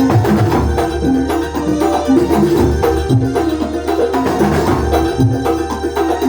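Kuntulan ensemble playing live: steady hand-drum and frame-drum percussion under a melody of short stepping notes.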